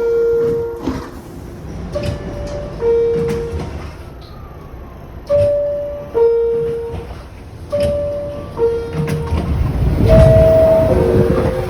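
R62A subway car door chime, a two-note descending ding-dong, sounding about three times in a row, with train rumble swelling louder near the end.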